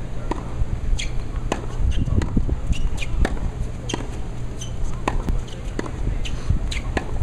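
Tennis ball struck by racquets and bouncing on a hard court in a practice rally: a run of sharp pops and knocks, roughly one every half second to a second, over a low steady rumble.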